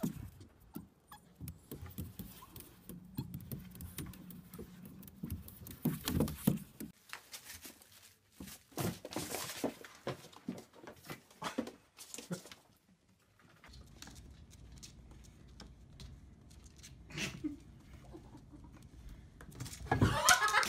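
Scattered light taps, scrapes and knocks of small pets moving about on hard plastic surfaces, with a faint steady low hum in the background in the second half.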